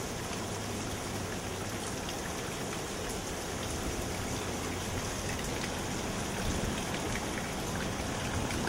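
Steady heavy rain falling in a hurricane's outer feeder band, an even hiss with scattered drops pattering.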